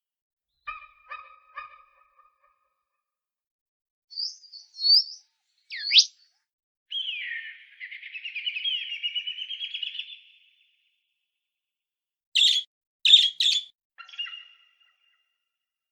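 A run of separate bird calls, each cut off into silence: three short calls, then high chirps, a quick rising whistle, a long twittering trill of about three seconds, three sharp chirps and one last short call.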